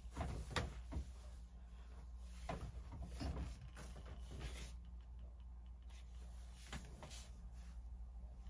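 Quiet room with a steady low hum and a few soft knocks and rustles scattered through it, from someone moving about and handling clothing.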